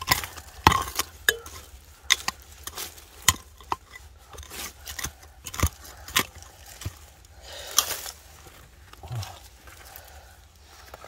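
Irregular clicks, knocks and clinks of hard objects being handled, with a short scraping noise about eight seconds in.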